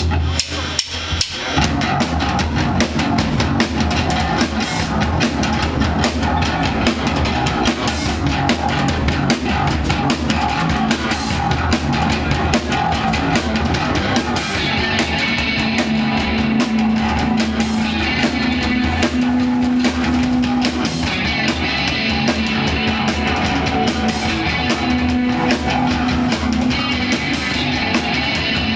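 Live rock band playing: drum kit, electric guitar and bass guitar, the full band coming in about a second and a half in after a brief drop.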